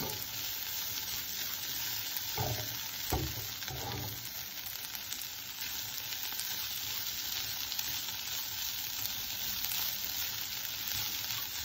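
Green beans and crumbled toor dal sizzling as they stir-fry in a nonstick pan, stirred with a silicone spatula. A few soft knocks come about two to four seconds in.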